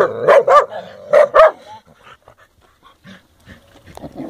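Dog barking from inside a clay pipe in a wall: four loud barks in quick succession in the first second and a half, then only fainter sounds.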